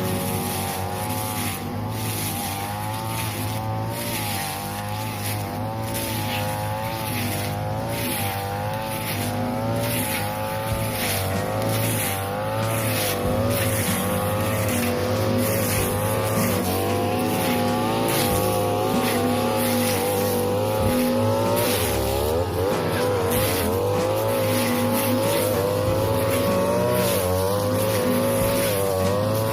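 42cc brush cutter engine running hard with a blade cutting through tall, flattened grass. Its pitch rises and falls constantly as the load changes, dipping briefly about two-thirds of the way through before climbing again.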